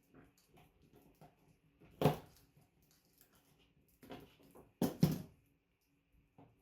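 Handling noises as network cable is worked by hand with a cutting tool: scattered small clicks and rustles, with a louder scrape about two seconds in and two more close together around five seconds.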